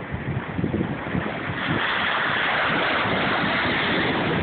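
Wind buffeting the microphone over the rush of ocean surf, the hiss of the surf growing louder about a second and a half in.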